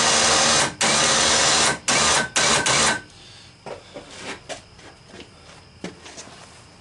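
Badlands Apex 5500 short-drum electric winch running, reeling in its rope in short bursts with brief stops between them. It stops about three seconds in as the hook comes up to the fairlead, and a few faint clicks follow.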